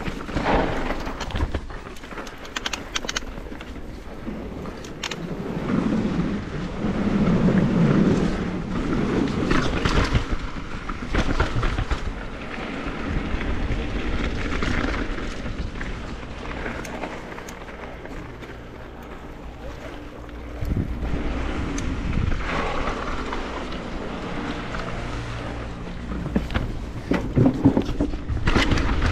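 Mountain bike rolling fast down a loose gravel and dirt trail: tyres crunching over stones and the bike knocking and rattling over bumps, with wind rushing over the microphone.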